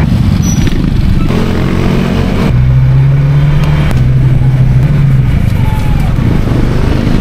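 Motor scooter engine running under way, with road noise and wind rushing over the microphone from the moving bike. There is a steady low hum, and the sound shifts abruptly a few times.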